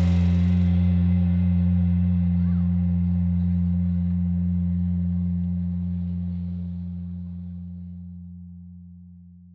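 The last low note of the background music, held and ringing out, slowly fading away near the end.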